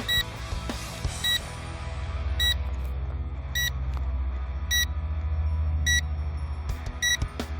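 An SG906 Pro2 drone's remote controller beeping, one short high beep about every second, a warning typical of low drone battery, over a steady low rumble.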